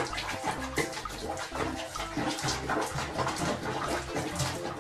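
Bathwater sloshing and splashing around a cat moving in a basin, with many short splashy sounds throughout.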